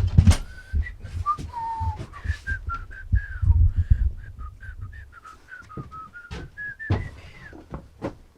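Someone whistling a wandering tune, over low knocks and clatter of handling in the first half.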